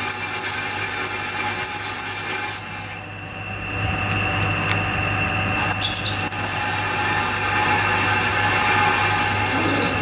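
Milling machine drilling holes through metal plate: the drill bit squeals and chatters in the cut for about three seconds, then the machine runs on steadily with the cutting stopped.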